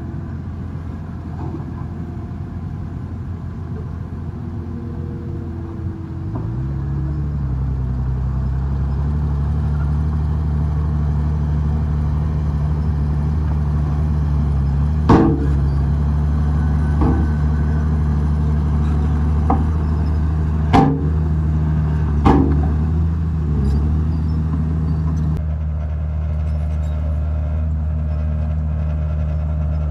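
Diesel engine of a Komatsu D51PX bulldozer running under load, its revs stepping up about six seconds in, with five sharp metallic clanks in the middle.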